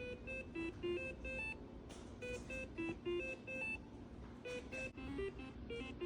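Homemade 555-timer synthesizer, stepped by a 16-step sequencer, playing a looping melody of short electronic beeps through a small speaker, about three notes a second.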